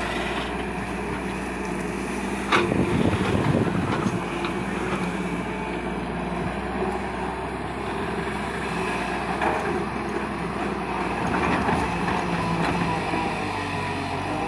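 JCB excavator's diesel engine running steadily, with a sharp clank about two and a half seconds in followed by a second or so of rattling.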